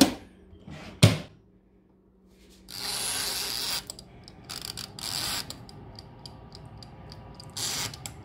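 Knocks as the basket goes in and the air fryer oven closes, then the rasp of its timer knob being wound, after which the mechanical timer ticks evenly at about three ticks a second.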